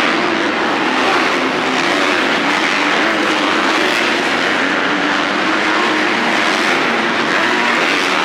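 Several supercross dirt bikes running on the track at the same time, their engine notes overlapping and rising and falling into one steady, loud blend.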